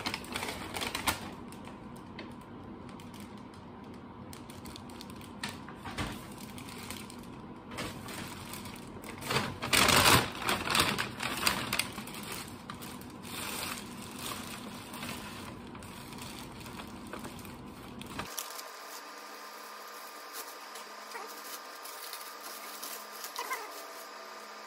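A brown paper bag and a clear plastic bag rustling and crinkling as they are pulled and torn open by hand, in irregular bursts, loudest about ten seconds in.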